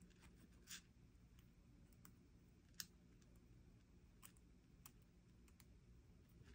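Near silence with a few faint, sharp clicks of small metal jewelry findings, a split ring and lobster clasp, handled with chain nose pliers; the sharpest click comes a little under three seconds in.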